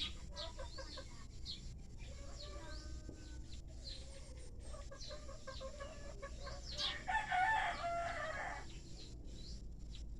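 Birds chirping in short, quick calls, with one louder, drawn-out call lasting about two seconds past the middle.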